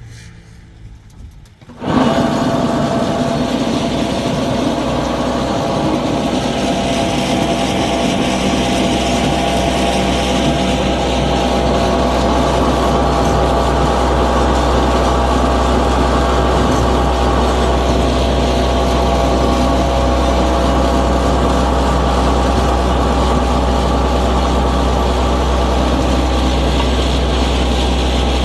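A motor starts abruptly about two seconds in and runs steadily at one even pitch, with a strong low hum.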